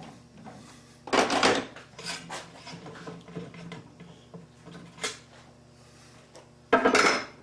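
Metal clunks and clinks of a workpiece being taken out of a three-jaw chuck: a loud knock about a second in, a few lighter clinks after it, and another loud knock near the end.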